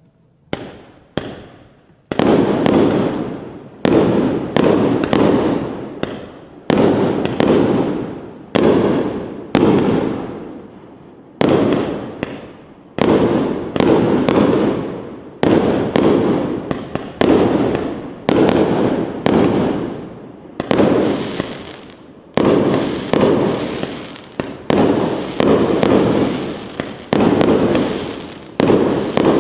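A 100-shot consumer firework cake (battery) firing shot after shot: two small pops first, then a steady run of loud bangs about one a second, each dying away in a rumble before the next, coming a little faster toward the end.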